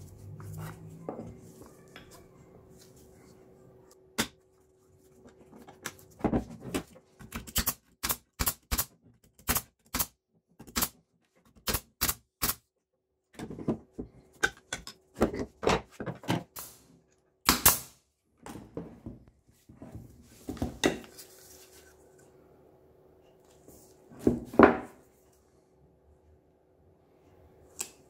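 Plywood parts and wooden clamp pieces handled and set down on a workbench: a long, irregular series of sharp clicks and wooden knocks, with a faint steady hum behind them at times.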